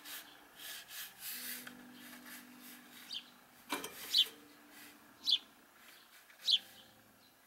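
Pencil scratching across drawing paper in quick sketching strokes. From about three seconds in, four short, high, falling chirps, the loudest sounds here, come roughly once a second, with a single sharp tap between the first two.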